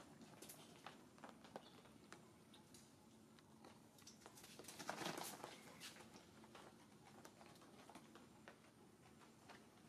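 Near silence: faint scattered ticks and clicks, with one short, louder rustle about five seconds in.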